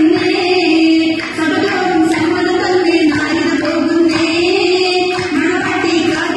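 Oppana song: a Mappila-style sung melody carrying on without a break, the music for an oppana dance.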